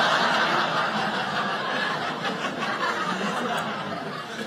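A theatre audience laughing at a joke, loudest at the start and slowly dying down.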